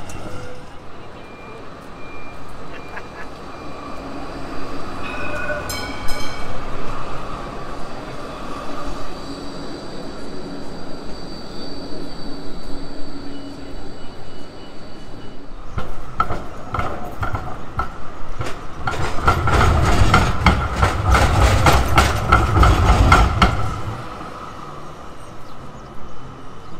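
Melbourne electric trams passing on street track. A short ringing tone comes about six seconds in, and a steady high whine follows. Then, for several seconds, a tram's wheels clatter and rumble loudly over rail joints and crossings before it dies back to street noise.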